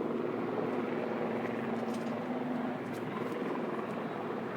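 Helicopter running close by, a steady rotor and engine roar with a constant hum underneath.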